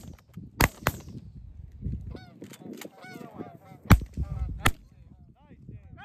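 Canada geese honking over the decoys, with several shotgun shots fired at them: a pair of loud shots about half a second and a second in, fainter ones around three seconds, and two more loud shots around four and four-and-a-half seconds.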